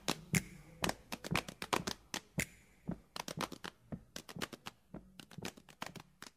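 Rapid, irregular sharp clicks and taps, several a second.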